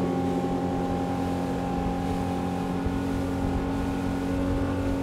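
Suzuki outboard motor running at a steady cruising speed, its tone holding level throughout, over the rush of water past the hull.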